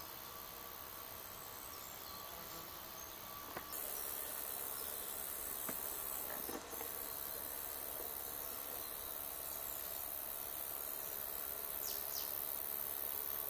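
Steady high-pitched chirring of insects in a forest, which suddenly gets louder about four seconds in. Two short falling chirps come near the end.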